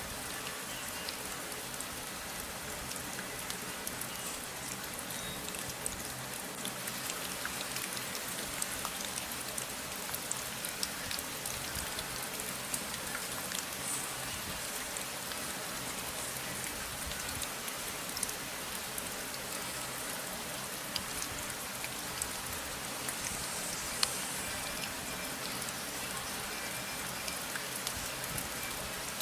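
Steady rain falling, with many individual drops pattering and ticking on a surface and one sharper drop about 24 seconds in.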